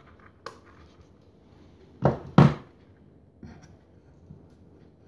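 Hands handling a small battery pack for fairy lights as it is switched on and set down: a light click, then two louder knocks a third of a second apart, and a softer one a second later.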